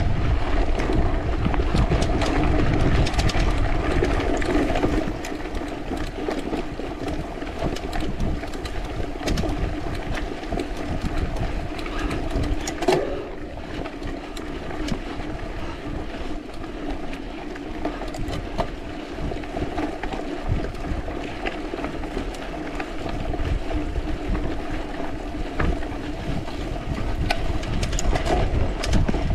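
Mountain bike being ridden: wind rushing over the camera microphone and a steady rolling noise from the bike, with scattered small rattles and clicks. It is louder for about the first five seconds, then a little quieter.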